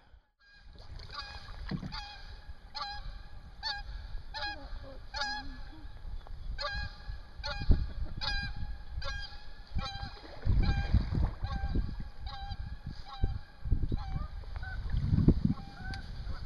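Geese honking over and over, a short call about every half second to a second. Low gusts of wind rumble on the microphone a few times in the second half.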